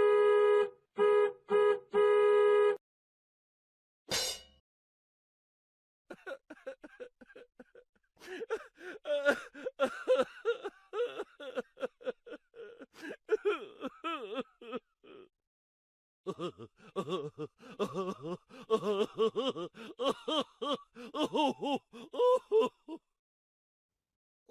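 A string of comic sound effects: a pitched electronic tone stuttering in about six quick pulses, a single click, then two long runs of cartoonish voice effects, wobbling and broken up like laughing and gasping.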